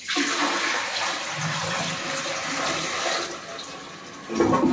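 Water poured from a bucket into a one-piece ceramic toilet bowl, a steady splashing rush into the bowl and trap that eases after about three seconds, with a louder surge near the end. The bowl is being filled to test the newly set toilet for leaks at its base.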